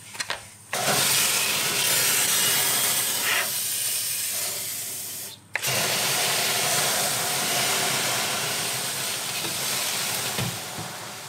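Water misted from a hand spray bottle into a hot bread oven, hissing steadily, to fill the oven with steam for baking. Two long hisses, broken by a short pause about halfway through, the second fading toward the end.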